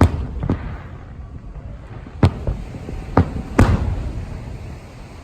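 Aerial fireworks shells bursting overhead: a string of sharp booms at uneven intervals, loudest right at the start, about two seconds in and near the end, with lighter bangs between. Each boom trails off in a rumbling echo.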